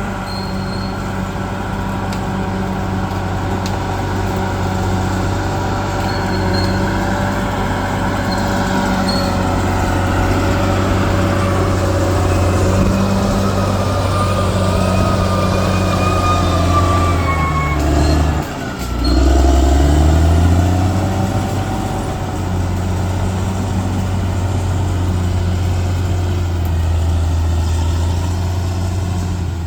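Bulldozer's diesel engine running steadily under load, with a higher whine that slowly falls in pitch. About two-thirds of the way through, the engine briefly drops in speed, then picks back up.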